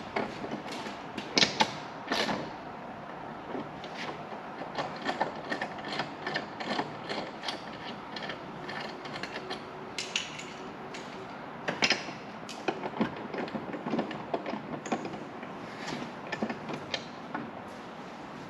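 Irregular clicks, knocks and clanks of hand tools and metal exhaust parts being worked on while the stock muffler is loosened for removal.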